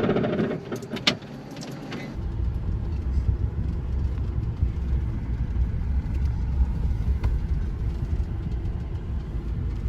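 A few sharp clicks and a knock in the first two seconds, then a vehicle engine running with a steady low rumble.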